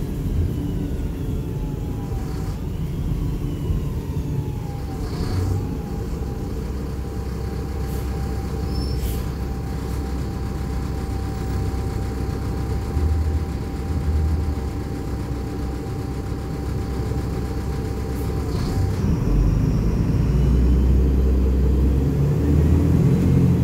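Mercedes-Benz O500U city bus with Voith automatic transmission running, heard from inside the cabin: steady diesel and driveline rumble with a thin whine over it and a few short rattles. The rumble grows louder near the end as the bus pulls harder.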